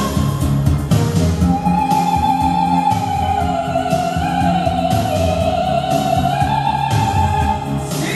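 Soprano holding one long high wordless note with vibrato over an orchestral backing track. The note comes in about two seconds in after shorter notes, sags slightly in pitch midway, lifts again and ends just before the close.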